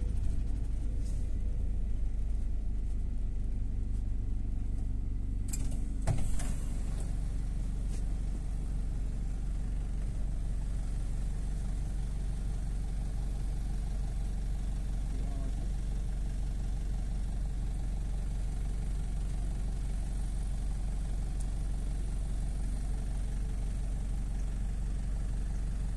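Engine and road noise of a moving vehicle heard from inside the cabin: a steady low rumble, with a couple of sharp knocks about six seconds in.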